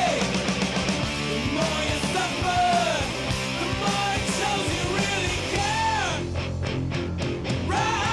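Rock music with a singing voice.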